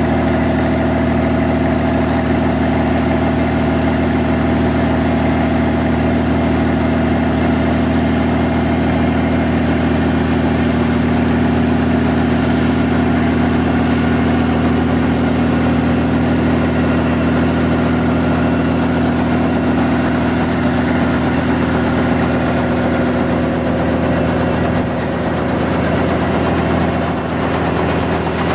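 Robinson R44 Astro helicopter's Lycoming O-540 six-cylinder piston engine running steadily, with the main rotor turning, on its first ground run after a 2,200-hour overhaul.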